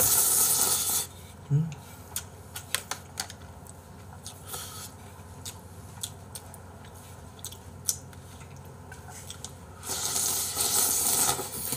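Noodles slurped from a bowl held to the mouth: one loud slurp at the start and a second near the end. In between, scattered light clicks of chopsticks against the bowl.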